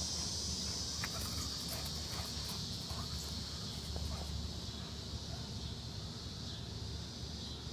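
Steady high-pitched chorus of insects in a garden, over a low steady hum, with a few faint short sounds in the first few seconds.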